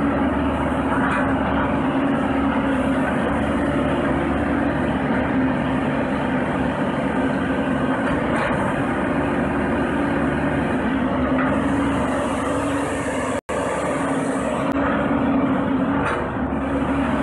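Yanmar diesel engine of a Shanding SD75W wheeled excavator running steadily at working revs as the machine moves and swings its boom. The sound cuts out for an instant about two-thirds of the way through.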